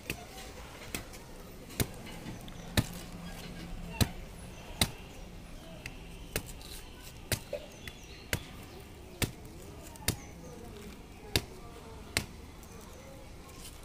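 Large curved machete chopping into the fibrous husk of palmyra palm fruit, sharp chops about one a second as the husk is trimmed off.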